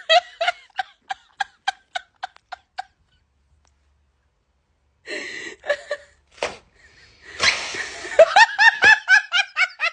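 High-pitched laughter in short, evenly spaced bursts, about three a second, stopping about three seconds in. After a pause of about two seconds come a few breathy bursts and a sharp hiss, then another run of rising laughs near the end.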